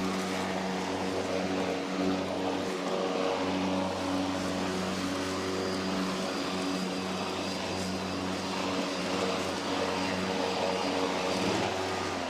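Worx WG761E cordless battery lawnmower running, its motor and blade giving a steady hum with a whooshing hiss, while it is used in push mode with the drive disengaged. It begins to wind down right at the end.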